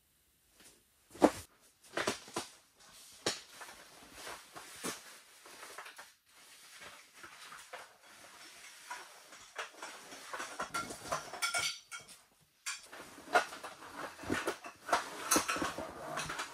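Irregular knocks and clicks with rustling, as of objects being handled, the sharpest knock about a second in and a busier stretch of clicking and rustling in the second half.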